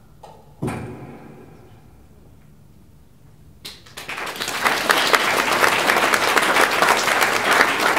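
A last musical note struck and ringing out as it fades, then audience applause breaking out about four seconds in, dense and steady.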